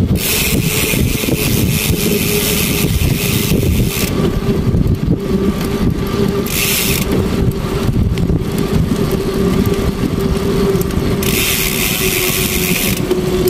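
Motorcycle engine running steadily while riding along. Three stretches of hiss come and go over the rumble.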